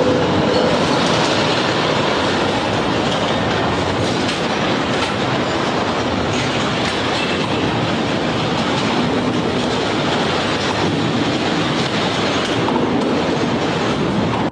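A kitchen in a full-scale building on a shake table being violently shaken in a simulated earthquake: loud, continuous rattling and clattering of cabinets, dishes and other contents, with no let-up until it cuts off suddenly at the end.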